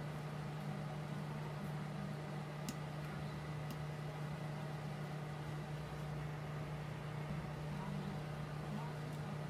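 A steady low hum, with two faint, light clicks about three and four seconds in.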